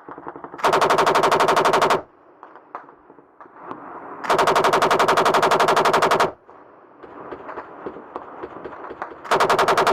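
A machine gun firing three long bursts, each about one and a half to two seconds of rapid, evenly spaced shots at roughly ten rounds a second. Fainter scattered cracks fall between the bursts.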